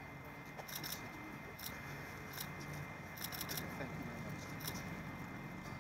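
Faint, irregular sharp clicks and light rustles, some single and some in quick little clusters, over a quiet outdoor background.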